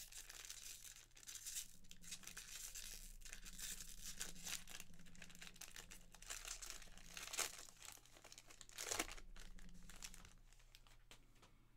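Foil trading-card pack crinkling and tearing as it is opened by hand. Louder crackles come about seven and nine seconds in, and it quiets near the end.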